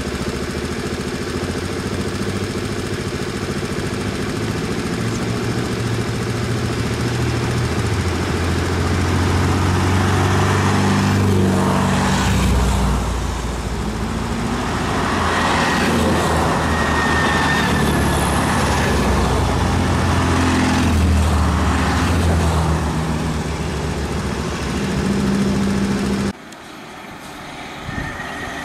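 Air-cooled flat-four engines of classic Volkswagen Beetles running at low speed as the cars creep past in a line, the engine note rising and falling as each one goes by. Near the end the sound drops suddenly to a quieter engine.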